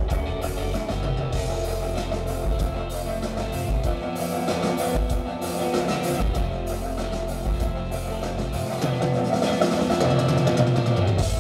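Live rock band playing: electric guitars and drum kit with a cello, the drums hitting steadily, the music growing louder over the last couple of seconds.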